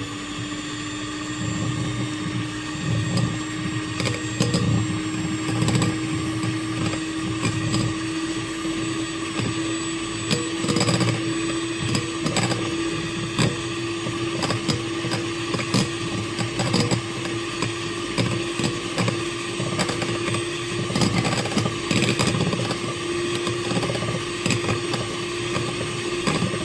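Electric hand mixer running steadily, its twin beaters whipping egg yolks and sugar in a glass bowl. The motor's hum creeps slightly higher in pitch over time, with frequent irregular clicks as the beaters knock against the bowl.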